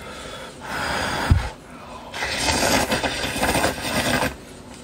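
A person slurping sweet potato glass noodles in hot, sour, soupy broth: a short slurp about half a second in, then a longer, louder one from about two seconds in.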